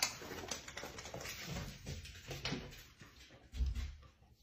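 A corgi's paws scuffing and clicking on a hard floor as it trots away, with a dull thump about three and a half seconds in.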